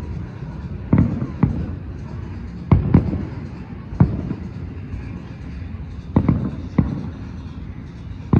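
Fireworks shells bursting overhead: about seven sharp booms at uneven intervals, some in quick pairs, each trailing off in a rumbling echo.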